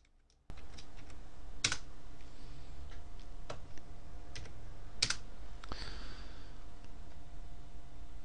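Computer keyboard keystrokes: about ten separate clicks scattered over the first six seconds, two of them louder, over a steady low background hum and hiss.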